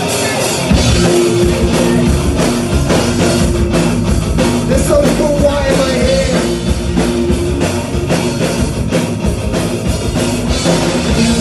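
Loud live rock music: a drum kit played hard, with steady held notes from other instruments underneath.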